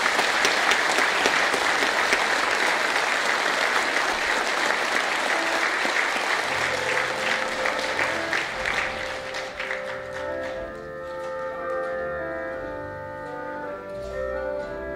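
Audience applauding, dying away about two-thirds of the way through, while a small live band starts playing a tune with bass and sustained keyboard or brass notes from about halfway.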